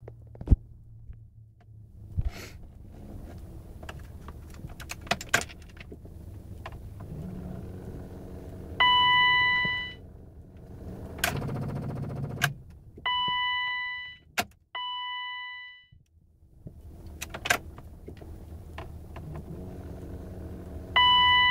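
Ignition key clicking and jangling in a BMW E34, with the car's electronic warning chime sounding four times, each a single fading tone, over a steady low hum. The car won't start, which the owner suspects is an electrical fault.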